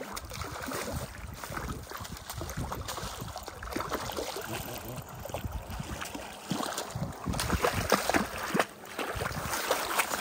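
Lake water lapping and splashing in small, uneven bursts, with a low rumble underneath.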